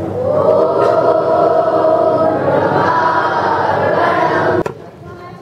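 A large group of students singing together in unison, a held, slow chant-like line that stops abruptly about four and a half seconds in.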